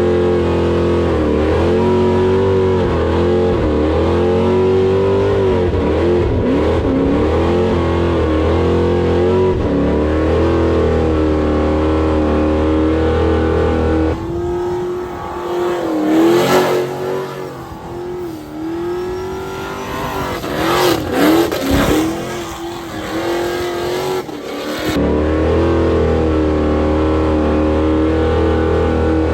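Car engine revving up and down over and over during burnouts and donuts, over a steady low drone. Roughly halfway through, for about ten seconds, the drone drops out and the revs come choppier, with a few brief loud bursts of noise.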